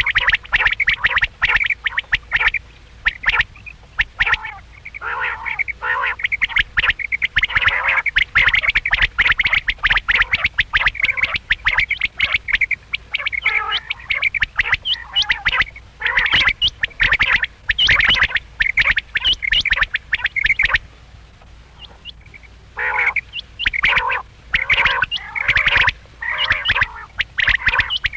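Quail calling: rapid runs of short, harsh notes repeated in bursts, with a brief pause about three-quarters of the way through.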